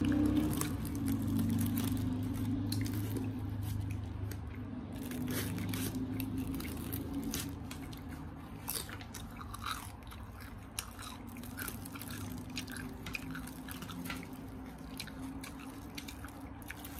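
Close-up crunching and chewing of crispy Korean old-style fried chicken: many sharp, irregular crackles as the thin fried skin is bitten and torn. A low steady hum sits under the first half.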